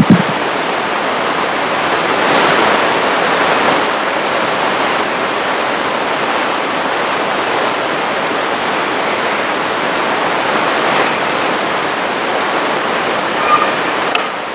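Audience applauding steadily, dying down at the very end.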